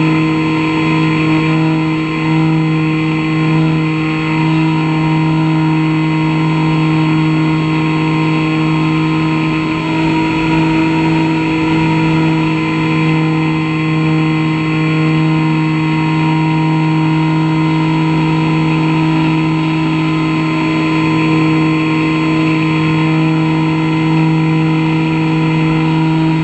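Model airplane's motor and propeller running at a steady throttle, a constant pitched hum, as heard from a camera mounted on the plane in flight.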